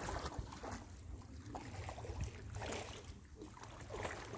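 A few soft, irregular splashes and sloshes of river water, about a second apart, over a steady low rumble of wind on the microphone.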